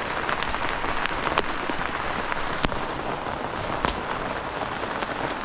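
Steady rain pattering on the tent shelter, with a few louder single drops striking it.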